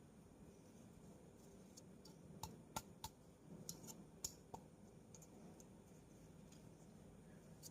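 Faint, scattered small clicks and taps of parts being handled and pressed into place by hand on a motorcycle during refitting, clustered in the middle, over a low steady background hum.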